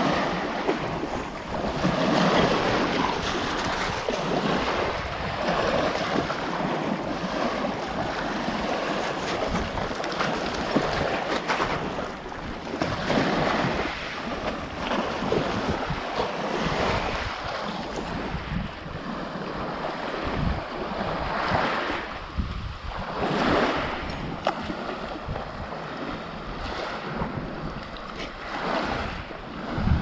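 Small sea waves breaking and washing up a pebble beach, the surf swelling and easing every few seconds, with wind buffeting the microphone.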